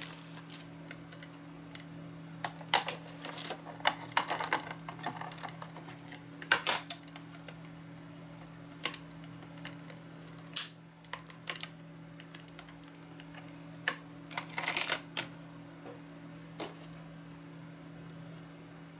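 Plastic ink-pad case being handled and opened on a craft mat: scattered sharp clicks and taps of plastic on plastic, in a few short clusters, over a steady low hum.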